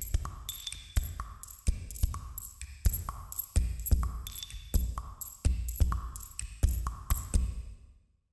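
Electronic intro music with a steady drum-machine beat, deep bass hits and short ringing synth pings. It fades out near the end.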